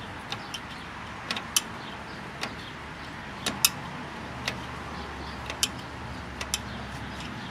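About a dozen sharp, irregular metal clicks from screwdrivers working a drum brake's star-wheel adjuster, winding the cog back to retract the brake shoes while the locking tang is held off.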